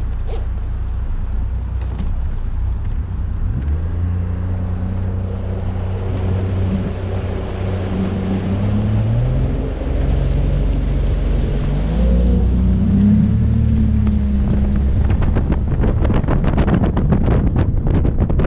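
A small boat's outboard motor running, its pitch rising as it speeds up a few seconds in and twice more after. Near the end, wind buffets the microphone as the boat runs fast.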